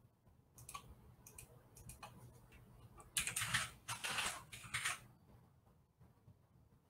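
Typing on a computer keyboard: a few scattered keystrokes in the first two seconds, then a louder quick run of keys from about three to five seconds in.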